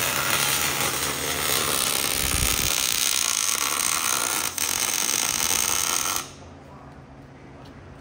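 Welding arc sizzling steadily, then cutting off abruptly about six seconds in as the weld stops.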